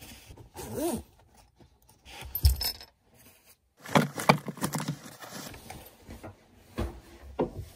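Things being handled and packed up on a desk: a fabric tote bag rustled and lifted, with small clinks and knocks in several short bursts, the busiest just past halfway. A short squeak about a second in.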